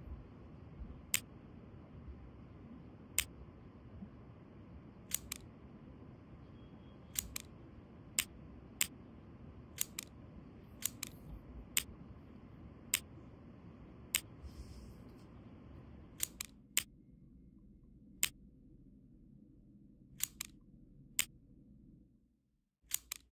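Sharp mechanical clicks, about two dozen, single and in quick pairs at irregular intervals, over a steady low background hiss that drops away about two-thirds of the way through.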